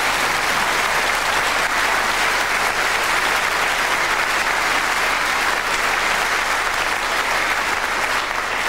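Live audience applauding steadily, dying away near the end.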